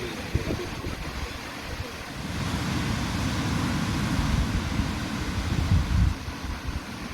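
Ocean surf washing onto a beach, with wind buffeting the microphone as a low rumble. A wave swells from about two seconds in, peaks near six seconds, then falls away.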